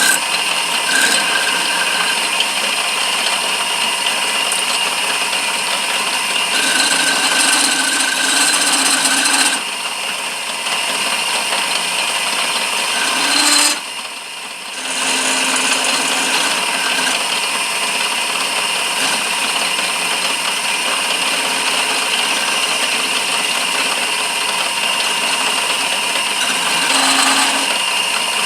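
A lathe running while a cutting tool turns a walnut handle: a steady motor whine under the scraping of the tool on the spinning wood. It eases off briefly twice, about ten and fourteen seconds in.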